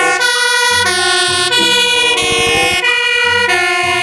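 Electronic fire-engine siren, loud, stepping back and forth between pitches with a falling sweep in the middle.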